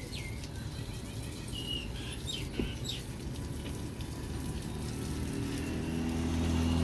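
Birds chirping outdoors, a run of short downward-sliding calls in the first three seconds, over a low background rumble. From about five seconds a low humming drone grows louder.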